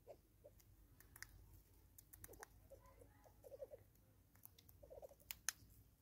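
Faint bird clucking: two short, quick runs of low notes, one about midway and one near the end, with scattered sharp clicks throughout.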